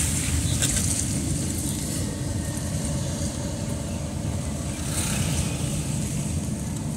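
Steady rumble of a car's engine and tyres heard from inside the cabin while driving slowly on wet asphalt, with a swell of tyre hiss about five seconds in as an oncoming car passes.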